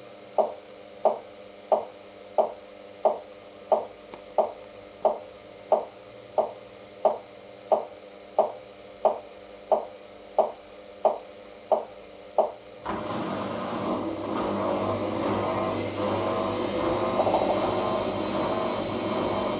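Hoover DYN9144D3X front-loading washing machine in its final spin stage. For about 13 seconds the drum turns slowly with an even, pulsing whoosh about one and a half times a second. Then a louder, steady whirring suddenly takes over as the machine starts spinning up toward its 1000 rpm spin.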